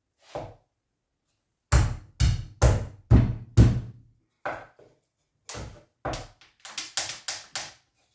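Wooden beehive frame being knocked together by hand: about a dozen sharp knocks as the side bar is driven into its slot in the top bar, the loudest a run of five about two seconds in, then lighter, quicker knocks. The joint is a tight fit, harder to seat than normal.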